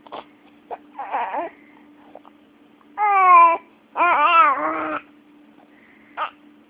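Baby with hiccups, fussing: a few short sharp hiccups, one near the start and one near the end, around two loud wavering cries about three and four seconds in.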